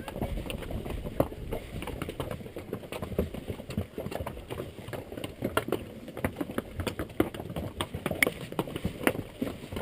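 Mule hooves clip-clopping on a rocky trail in an irregular run of steps, with wind rumbling on the microphone.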